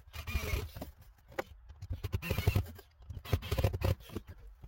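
Scraping and rustling from parts being handled and pushed into place, in three strokes with sharp knocks between them.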